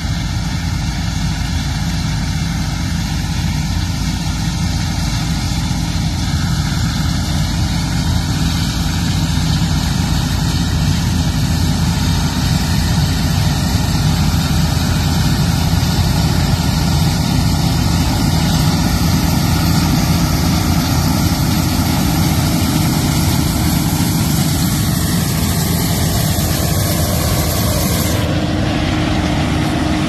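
Massey Ferguson combine running as it harvests, its engine and threshing machinery making a steady hum that grows louder over the first half as it comes closer.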